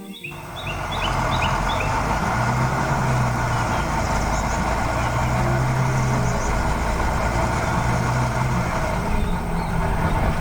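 A heavy vehicle's engine running steadily, with a low hum that swells and fades a few times. Short bird chirps are heard at the start.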